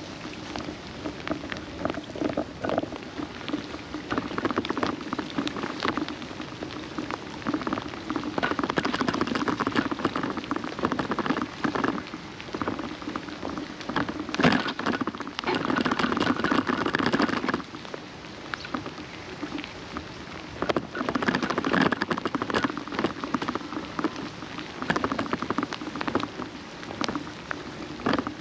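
Rain falling, with many close drop ticks over a steady wash; it swells louder in stretches.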